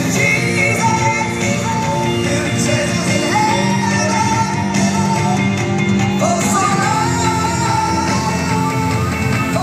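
Recorded song with a singing voice over a band accompaniment, playing continuously.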